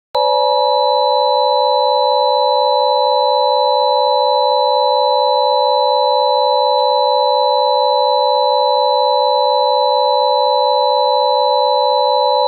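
Emergency Alert System attention signal: a loud, steady electronic chord of several pure tones sounding together, starting abruptly and holding without a break.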